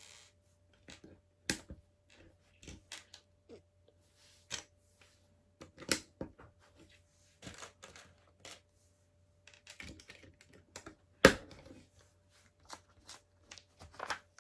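Small plastic LEGO pieces clicking and clattering irregularly as they are handled and pressed together, with one sharper click about eleven seconds in.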